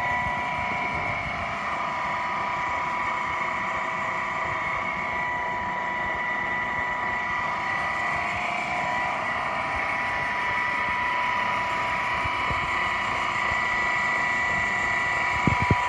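Workshop machinery running steadily, a constant motor hum with a high whine, with two quick knocks near the end.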